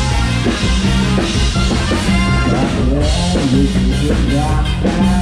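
Live band playing upbeat Thai ramwong dance music, with a drum kit and bass keeping a steady dance beat under melody lines.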